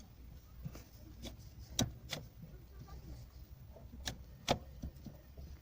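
Scattered light clicks and taps, about half a dozen spread over a few seconds, of hands handling parts inside an opened car steering column around the horn contacts.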